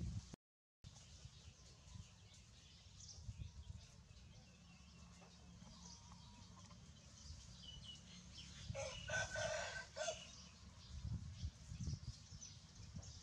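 A rooster crowing once, about nine seconds in, lasting around a second and a half, over a low rumble. The sound drops out completely for a moment just after the start.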